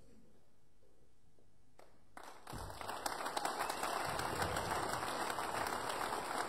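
Audience applause starts about two seconds in, builds over a moment and goes on steadily. It greets the conductor as he walks on stage.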